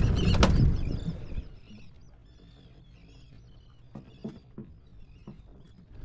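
Wind rumble and a knock in the first second, then faint, high chirping calls of a flock of seabirds over the water, with a few light taps.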